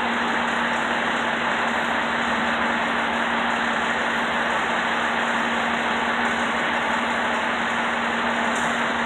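A fire truck's diesel engine idling steadily, with a constant low hum and no change in level.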